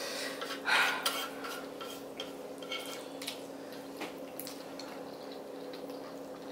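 Two people slurping and chewing spicy instant noodles: wet slurps, mouth smacks and small clicks come irregularly, loudest about a second in. A steady low electrical hum sits underneath.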